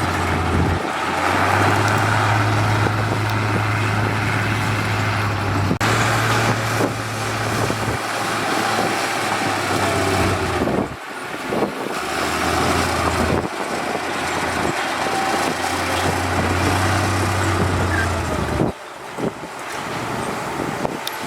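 Diesel engines of heavy road-construction machinery running under load, with a steady low engine hum that drops out and comes back several times. The sound changes abruptly a few times, as at cuts between clips.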